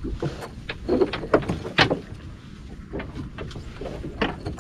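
Gillnet being hauled by hand over the side of a fibreglass panga: irregular knocks and rattles of the net and its catch against the hull, the loudest about one to two seconds in.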